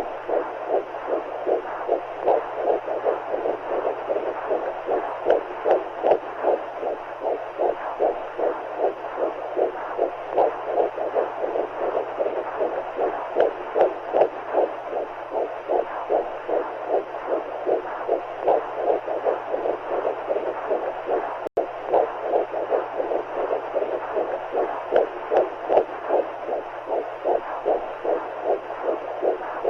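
Womb sound for soothing a baby: a heartbeat heard as a whooshing pulse through fluid, about two beats a second, over a steady rushing noise. There is a split-second dropout about two-thirds of the way through.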